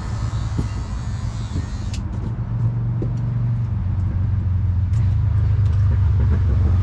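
A steady low motor hum that grows gradually louder, with a few faint clicks over it.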